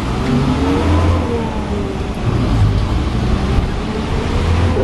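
City bus engine and drivetrain heard from inside the passenger cabin: a steady low drone under a whine that rises and falls in pitch as the bus accelerates and eases off.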